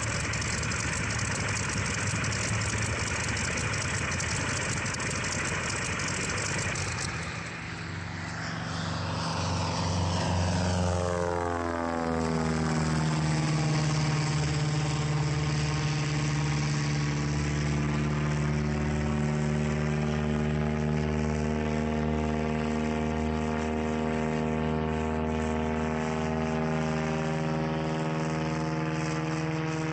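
Verner Scarlett 9S nine-cylinder radial engine running steadily on a propeller test stand. About seven seconds in it gives way to a light aircraft flying past low: its engine drone falls in pitch as it passes, then holds steady as the plane climbs away.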